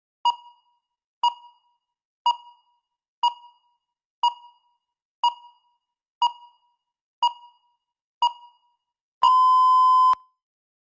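Countdown timer beeping: nine short electronic beeps, one each second, then a longer beep of about a second as the clock reaches zero, marking the end of the speaking time.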